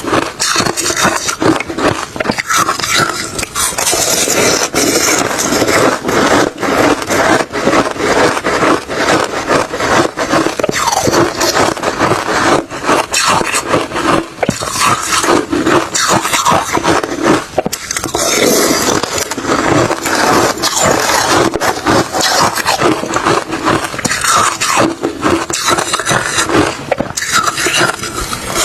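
Refrozen crushed ice and shaved ice being chewed, a dense, continuous crunching with no pauses.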